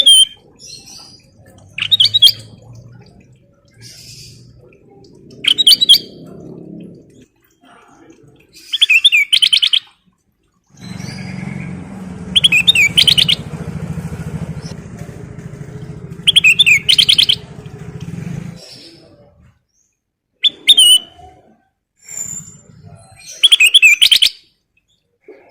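Kutilang emas bulbul singing, giving short, loud, warbling phrases every two or three seconds. A low rumbling noise runs under the song for about seven seconds in the middle.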